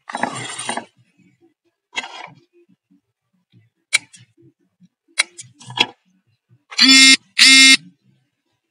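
Light handling noises and clicks as a circuit board and solder spool are moved about, then two loud, steady electronic beeps about half a second apart near the end: the sound effect of a subscribe-button overlay.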